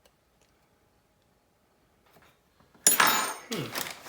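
Near silence, then nearly three seconds in a sudden sharp clink with a brief metallic ring, like a small tool or part knocking on a hard work surface, followed by rustling and scraping from handling the parts.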